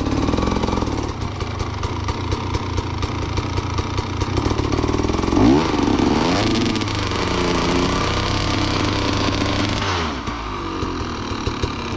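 300 cc two-stroke enduro dirt bike engine working under throttle, revving up sharply about five and a half seconds in, the revs rising and falling for a few seconds, then dropping back around ten seconds in.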